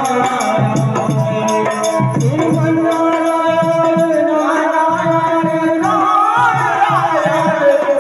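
Background music: a melody of long held notes over a steady, rhythmic beat.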